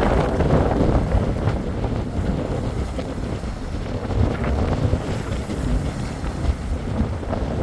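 Wind buffeting the microphone in a gusty, uneven rumble, over the wash of the sea.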